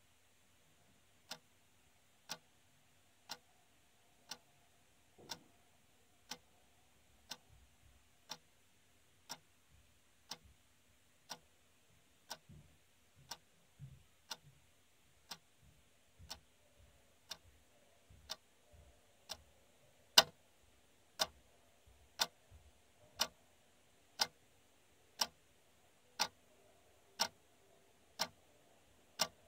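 Round wall clock ticking, one sharp tick a second, getting clearly louder about two-thirds of the way through.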